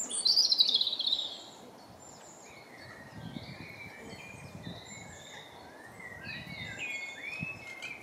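Rose-ringed parakeet giving a loud, rapid run of high chattering notes that falls in pitch over the first second, followed by fainter scattered bird calls.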